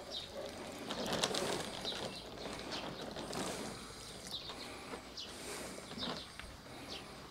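Water pouring from a plastic watering can onto potting soil in plant pots, a soft splashing that stops about four seconds in. Birds chirp briefly and repeatedly throughout.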